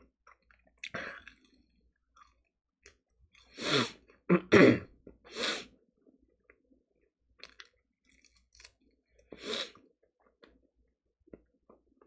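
A person chewing fried chicken close to the microphone, with small wet mouth clicks. A cluster of much louder short bursts comes about four to six seconds in, and another near ten seconds.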